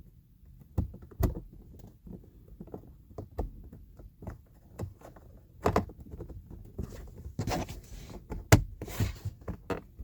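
Scattered light clicks and knocks of small parts being handled and pressed into place, with a sharper click about eight and a half seconds in.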